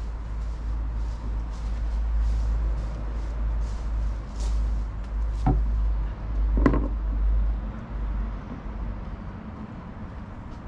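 Rustling of dry fallen leaves as someone walks through them dragging a branch, over a steady low rumble, with two sharp knocks of a stick on wooden deck boards about five and a half and nearly seven seconds in, the second louder.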